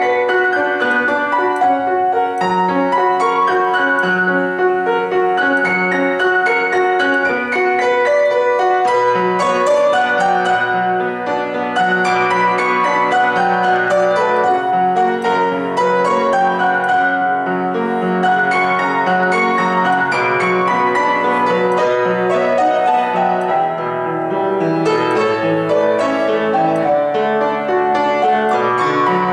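Grand piano played solo: a classical piece in a dense, continuous stream of notes over lower bass notes, at an even loudness.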